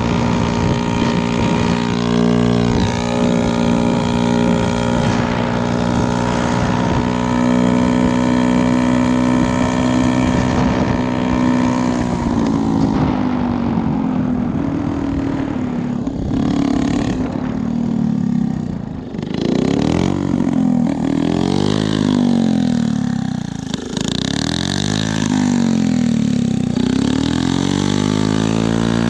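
Honda QA50 minibike's small single-cylinder four-stroke engine running at a steady cruising speed, then easing off about twelve seconds in. In the second half it is revved up and down several times.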